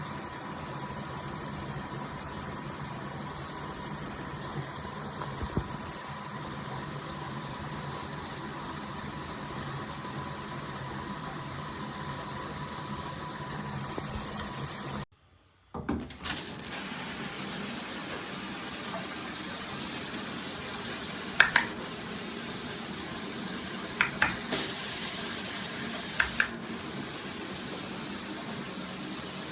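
Water running steadily from a handheld shower head, a continuous spray hiss. It stops briefly about halfway, then resumes, with a few sharp clicks in the second half.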